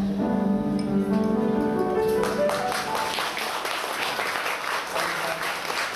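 A live acoustic song ends on sustained final notes, and audience applause breaks out about two seconds in and keeps going.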